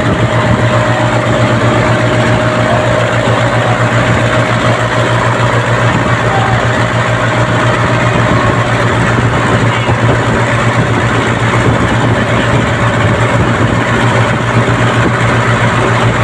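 Mitsubishi Colt Diesel truck engine, fitted as a fishing boat's motor, running steadily and loud with an even, rapid low throb.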